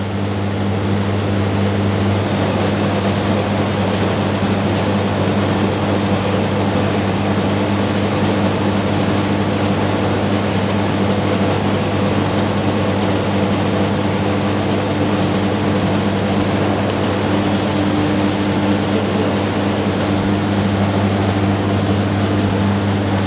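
Soft-serve ice cream machine running with a loud, steady motor hum and whir while soft serve is drawn from it; the sound swells in over the first couple of seconds, then holds even.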